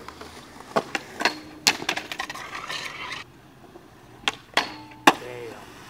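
Skateboards at a steel handrail down concrete stairs: a string of sharp pops and knocks from boards snapping and landing, with a stretch of wheels rolling on concrete. Several of the knocks are followed by a brief metallic ring from the rail, and the loudest knock comes near the end.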